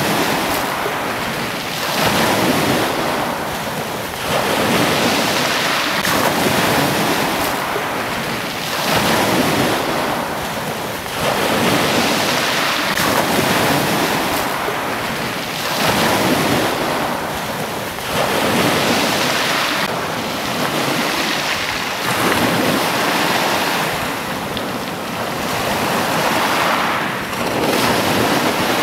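Sea waves surging and washing every few seconds, with wind noise on the microphone.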